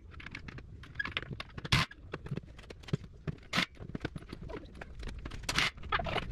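Light metallic clicking and clinking of wheel nuts being handled and threaded by hand onto the studs of a tractor's front wheel hub, with two sharper metal knocks, about two seconds in and about five and a half seconds in.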